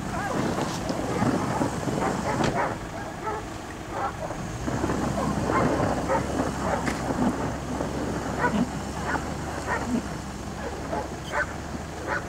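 Daihatsu Terios SUV driving up a slope through deep snow, its engine working and its tyres churning the snow, with a constant rushing noise. Short sharp calls come every second or so over it.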